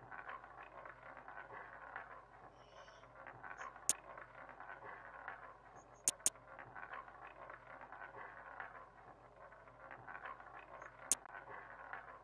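Sharp, isolated clicks of a computer mouse a few seconds apart, including a quick double click about six seconds in, over faint low hiss.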